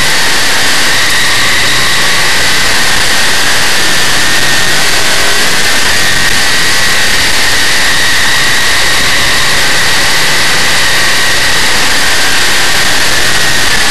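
Big-block Chevrolet V8 of a dirt modified race car running at racing speed, heard from the cockpit as a loud, steady noise of engine and rushing air.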